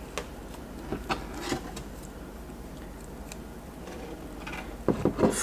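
Scattered faint ticks and rustles of 200-pound monofilament fishing line being handled and wrapped around a hook while a knot is tied, a little louder near the end, over a low steady hum.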